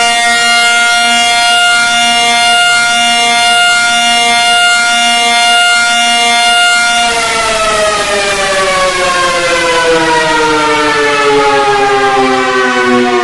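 Civil defense siren holding one steady pitch for about seven seconds, then winding down, its pitch falling slowly.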